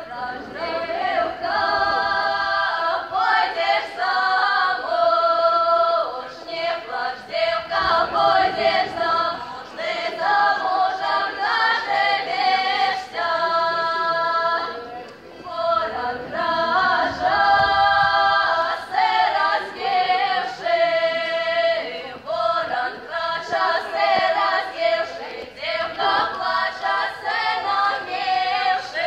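Group of six women singing a Belarusian folk song a cappella, their phrases often ending on long held notes.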